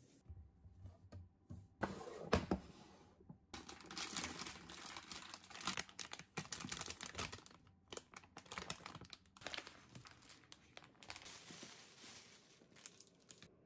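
Plastic food bags crinkling and rustling as they are handled: a bag of pancake mix and a clear plastic bag being opened and worked by hand, with a couple of sharp knocks about two seconds in.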